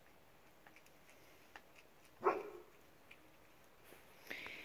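A dog barks once about two seconds in, a short call that falls in pitch. Faint scattered ticks come in between, and a second bark begins right at the end.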